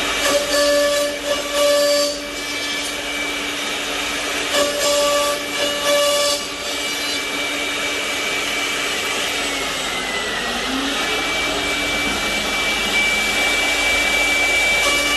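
CNC mortising machine running, with a steady whine from its spindles. Twice, near the start and about five seconds in, it cuts into wood for about two seconds, the sound getting louder and rougher.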